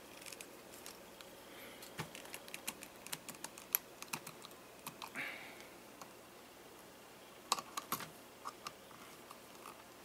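Faint, scattered small metal clicks and ticks of needle-nose pliers gripping and bending the end of a coiled metal washing-machine clutch wrap spring, bunched about two to four seconds in and again near eight seconds.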